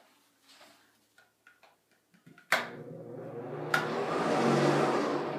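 Toilet flushing: a sharp clunk about two and a half seconds in, then a rush of water that swells and begins to fade. Faint clicks come before it.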